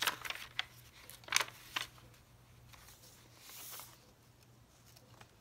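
Paper pages of a handmade junk journal being turned by hand: a few crisp rustles and crackles in the first two seconds, then a soft sliding swish about three and a half seconds in.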